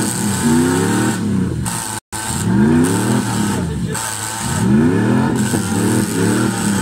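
A demolition-derby car's engine revved hard again and again, each rev rising in pitch and dropping back, several times a few seconds apart. The sound cuts out for an instant about two seconds in.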